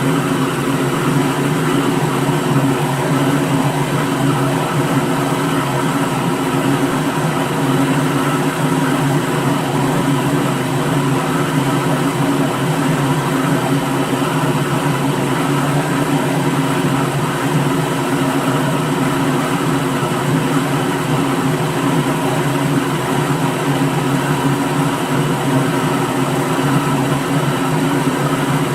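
Electric kitchen blender running steadily at one speed, a continuous motor hum with a whirring hiss over it.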